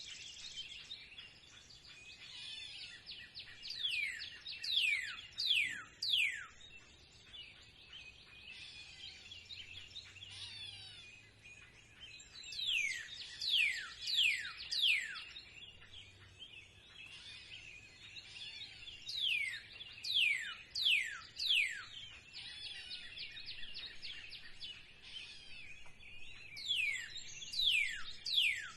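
Spring birdsong: one bird repeats a phrase of four or five sharply falling whistles about every seven or eight seconds, over a steady background of other birds chirping.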